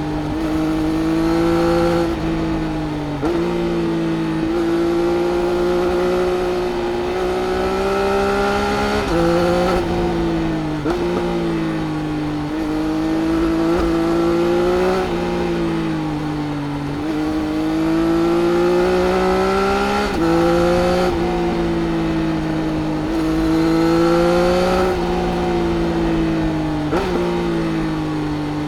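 Triumph Speed Triple RS inline-three engine through its Arrow exhaust, heard onboard while riding: revs climbing and falling over and over, with sudden jumps in pitch at each gear change.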